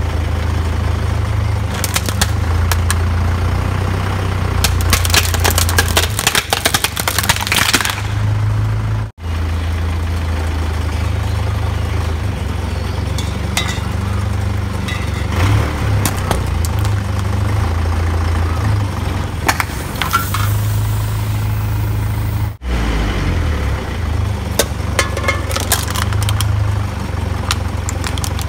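A vehicle's engine idles while its tyre rolls over objects and crushes them. A plastic toy keyboard cracks and crunches in a dense run of snaps. After a cut, an aerosol can is squashed with scattered clicks and then a hiss, and more cracking follows after another cut.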